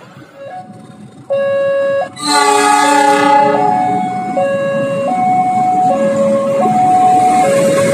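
Level-crossing warning alarm sounding a steady two-tone high-low pattern, starting about a second in, as a GE CC 206 diesel-electric locomotive approaches. The locomotive gives a short horn blast about two seconds in, and its engine rumble builds under the alarm.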